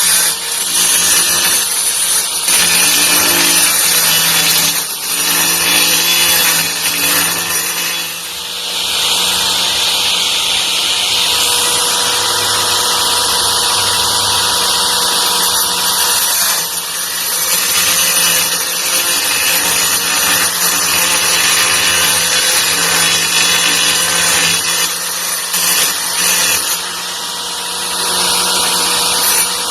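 Titanium AG710 710-watt angle grinder running continuously with a steady motor whine, with louder, hissier stretches about eight to twelve seconds in and again near the end.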